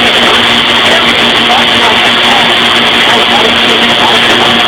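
TIG welding in progress: a loud, steady hiss with a constant low hum underneath, unchanging throughout.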